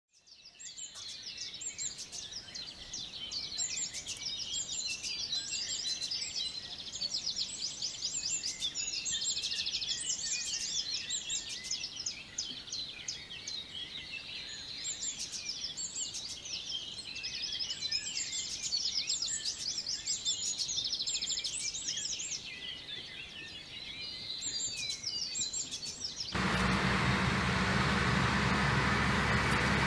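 Songbirds singing in a busy chorus of chirps and trills. Near the end it cuts abruptly to the loud, steady engine noise of a heavy earth-moving machine.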